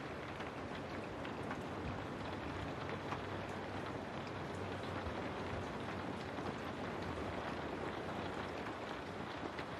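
Steady rain, an even hiss with faint scattered drop ticks and a low steady rumble underneath.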